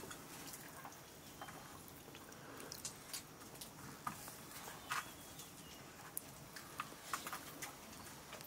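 Faint, scattered small clicks and taps of fingers and rice against stainless steel plates as people eat by hand, with soft chewing.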